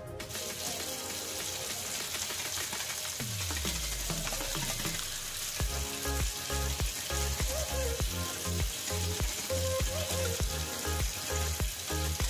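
A steady sizzling hiss throughout. Background music with a steady beat comes in about five and a half seconds in.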